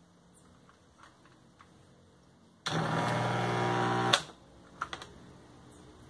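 A loud electric buzz from the washing machine test setup as the control board energises a part during its self-test, lasting about a second and a half and switching on and off abruptly, with light clicks before and after.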